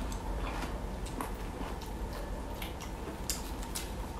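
A person chewing a mouthful of boiled bamboo shoot, with scattered short clicks and smacks of the mouth at an uneven pace.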